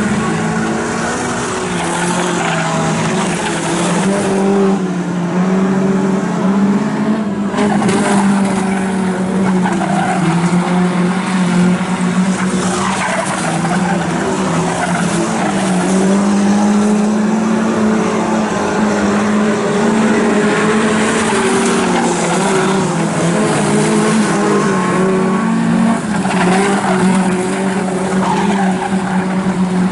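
Junior sedan speedway cars racing on a dirt oval, their engines making a continuous drone whose pitch wavers only slightly as they lap.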